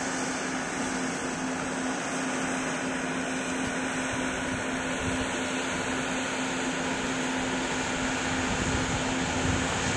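A steady mechanical hum, one constant low tone over an even hiss.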